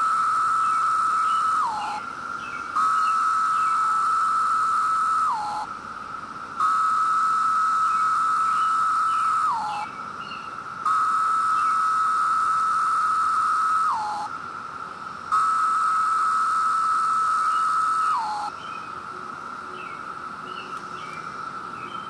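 Male periodical cicada (Brood II) singing its mating call to attract a female. It gives steady buzzing calls about three seconds long, each ending in a quick downward slur in pitch, with about a second between calls. The close calls stop about 18 seconds in, leaving a fainter steady drone underneath.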